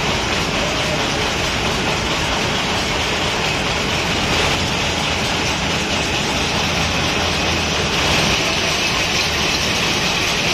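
Steady, even din of workshop machinery running, with no clear rhythm.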